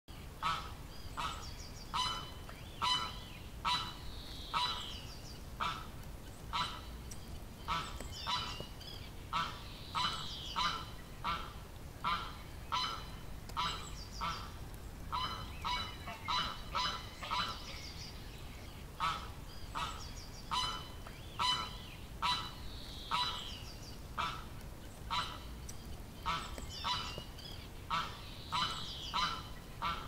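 Waterfowl calling over and over: a short call roughly every second, with a few higher, rougher chirps mixed in, as a duck-quack sound effect.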